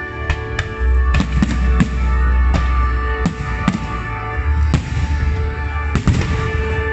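Aerial firework shells bursting, about a dozen sharp bangs at uneven intervals, over music with held notes and heavy bass.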